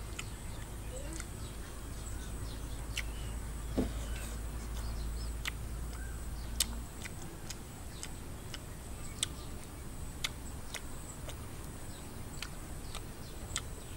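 Sounds of someone eating from a spoon: scattered sharp clicks of chewing and lip smacks at irregular intervals, over a faint steady high-pitched whine.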